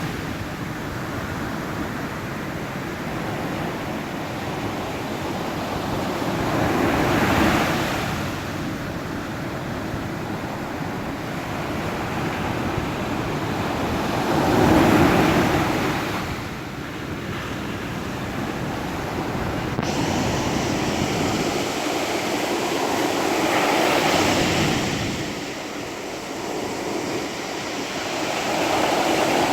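Ocean waves breaking on a shore, a steady wash of surf that swells every seven to nine seconds as each wave comes in.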